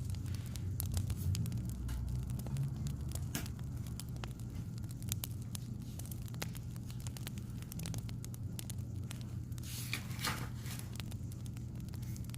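Crackling wood fire: scattered sharp pops and snaps over a low steady hum, with a brief rustling hiss about ten seconds in.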